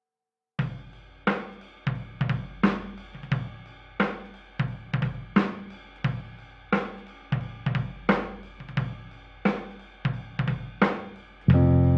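Background music: a drum kit plays a beat on its own. Other instruments come in with a sudden, fuller, louder sound near the end.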